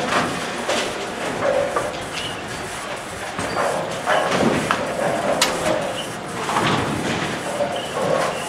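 Bowling alley din: balls rumbling down the lanes and pins clattering, with one sharp crash about halfway through and faint voices in the background.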